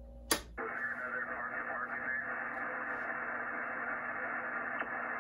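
A click, then a ham radio transceiver's speaker hissing with band noise and static on 40 meters, squeezed into the narrow single-sideband passband.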